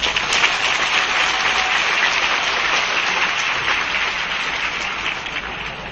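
Audience applauding: a dense, steady clatter of many hands clapping that starts suddenly and slowly dies down near the end.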